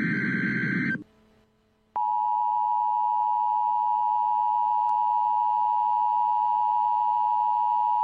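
Emergency Alert System broadcast tones. The last burst of the digital header's screeching data signal cuts off about a second in. After a short pause, the two-tone attention signal (853 and 960 Hz together) starts about two seconds in and holds steady and loud.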